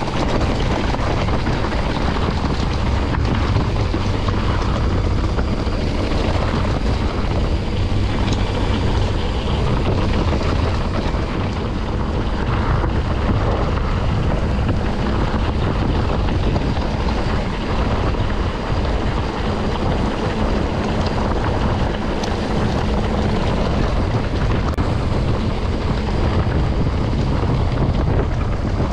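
Steady rush of wind on the microphone mixed with tyre and trail noise from a mountain bike riding along a trail, unbroken throughout.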